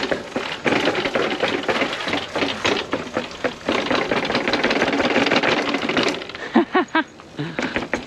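Electric bike rattling and clattering over rough ground as its suspension takes the bumps, a rapid run of knocks and clicks that eases off about six seconds in.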